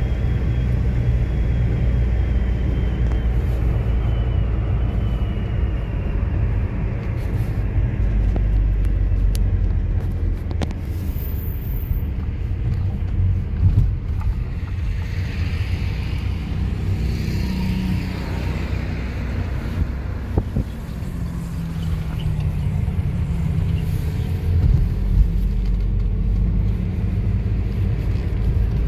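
Car driving along the road, heard from inside the cabin: a steady low rumble of engine and tyre noise, with a brief bump or knock about 14 seconds in and again near 25 seconds.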